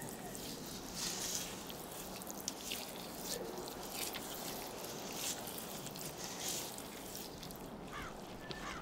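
Soft, irregular wet squelches of a thick paste being stirred and worked by hand, over a low steady background hiss.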